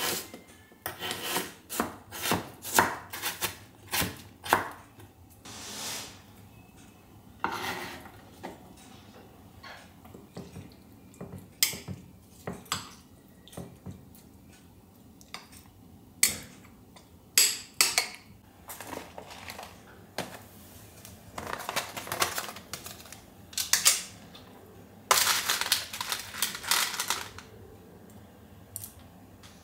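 Chef's knife chopping frozen banana on a wooden cutting board, a quick run of sharp knocks, then a metal spoon clinking and scraping in a small glass bowl as the mixture is stirred, with two longer stretches of scraping near the end.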